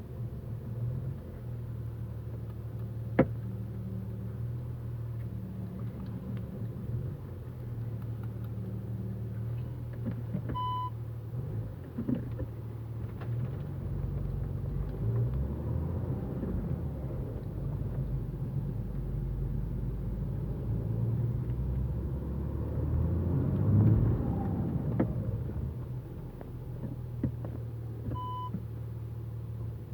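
Audi A4 B7 3.0 TDI's diesel engine running at low speed, with a single sharp knock about three seconds in and a few duller knocks later, the front-end clunk the owner is chasing. Two short electronic beeps sound, one about eleven seconds in and one near the end.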